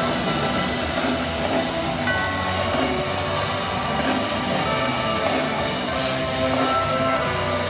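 Live amplified concert music from an orchestra on stage, with drums and guitar in the mix, heard from the audience seats of an open-air amphitheatre.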